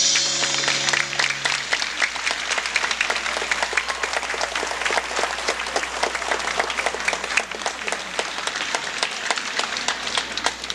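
Audience applauding a choir as its final held chord dies away in the first second or two; the clapping then slowly grows quieter.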